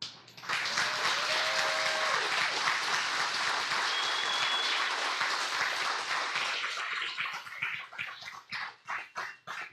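Congregation applauding, with a brief shout from someone in the crowd about a second in; the applause thins to scattered claps and dies away near the end.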